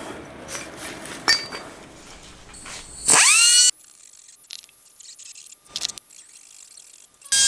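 A pen-type rotary grinder spins up with a rising whine and grinds the aluminium crankcase in two short bursts, one about three seconds in and one near the end. It is clearing a spot where the idler gear hits. A single light tap from handling the case comes about a second in.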